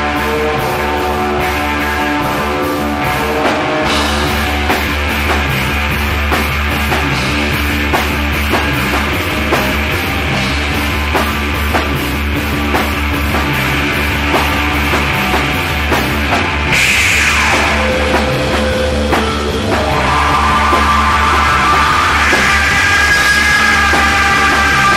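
Psychedelic rock recording with a drum kit keeping a steady beat under guitars. About 17 seconds in, a sweeping effect dips and rises, then the music thickens and grows slightly louder.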